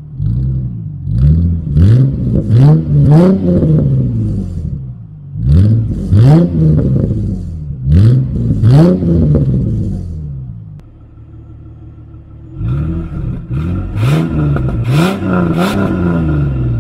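Car engine revved repeatedly at standstill, heard at the tailpipe through a homemade glass-pack muffler: groups of quick blips that rise and fall in pitch, with a steadier idle between them. Over the last few seconds the same engine revs through the original factory muffler.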